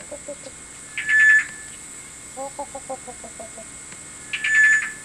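Yellow-billed hornbill's low clucking notes, in a quick run of about eight about halfway through and a few at the start. Twice, about a second in and near the end, a louder, higher trilled bird call cuts in.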